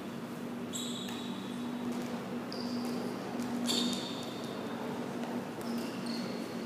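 Badminton players' court shoes squeaking on the sports-hall floor: several short, high squeaks, the loudest about halfway through, over a steady low hum.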